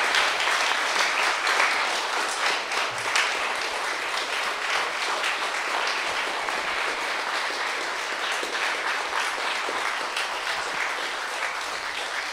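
Audience applause: many people clapping steadily, loudest at the start and easing off slightly toward the end.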